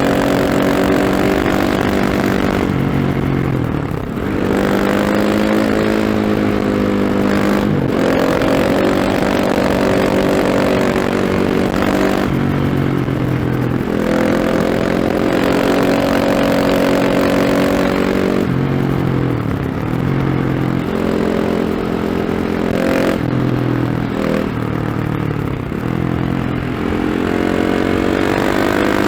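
KTM 690 SMC R's single-cylinder engine through a Remus slip-on exhaust with its dB-killer fitted, ridden hard. Its pitch repeatedly climbs under acceleration and drops sharply with each shift or roll-off of the throttle, several times over.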